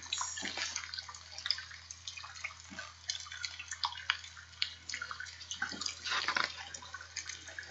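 Faint scattered crackling and rustling from a hardcover picture book being held up, handled and turned, with a slightly louder handling noise about six seconds in.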